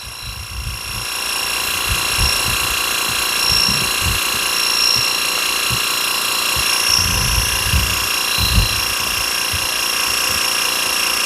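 Harbor Freight battery-powered portable pressure washer running and spraying water onto concrete: a steady hiss of spray over the pump's high whine, which builds up about a second in.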